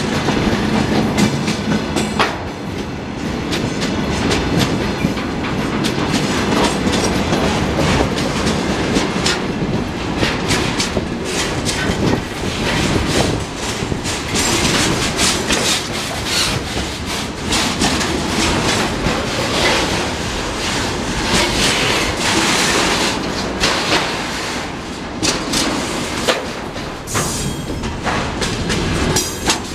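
Freight train wagons loaded with shipping containers rolling past at close range. There is a steady rumble of steel wheels on rail, with a continual clatter of clicks and knocks as wheels pass over rail joints.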